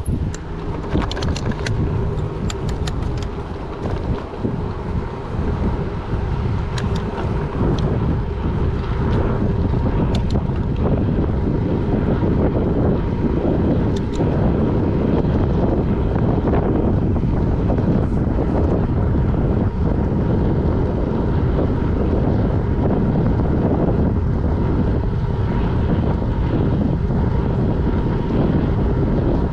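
Wind rushing over the microphone of a camera on a moving bicycle, with the tyres rolling on asphalt. A few sharp clicks come in the first few seconds, and the rush grows steadier and a little louder from about ten seconds in.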